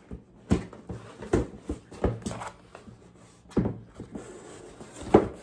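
A cardboard box being opened and its packaging handled: a string of separate knocks, scrapes and rustles of cardboard and paper, the loudest one near the end.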